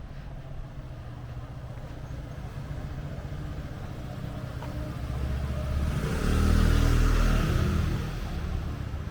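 A motor vehicle passes close by: its engine and tyre noise build, are loudest about six to eight seconds in, then fade, over a steady low traffic rumble.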